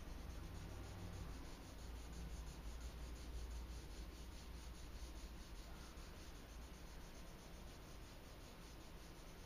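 A drawing tool scratching and rubbing on sketchpad paper in quick, repeated shading strokes. A steady low hum runs underneath.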